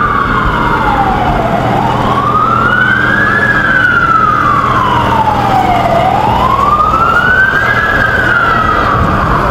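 Emergency vehicle siren in a slow wail, its pitch rising for about two seconds and falling for about two and a half, over and over. Beneath it is the steady low rumble of street traffic.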